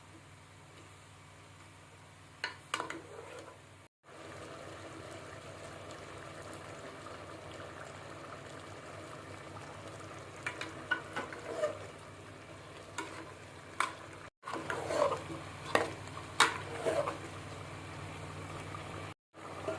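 Vegetables frying with a steady sizzle in a pan while a spoon stirs, with scattered clicks and scrapes against the pan; the sound drops out abruptly three times at edit cuts.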